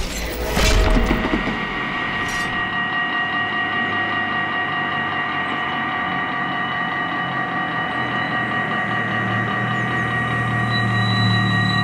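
Dutch level-crossing warning bells ringing continuously as the crossing closes, after a crash sound effect dies away in the first second. A low hum grows louder near the end.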